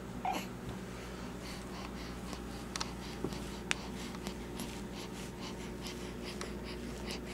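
Baby's soft snuffly breathing and small mouth clicks over a steady low hum of room tone, with two sharper clicks a little under three and four seconds in.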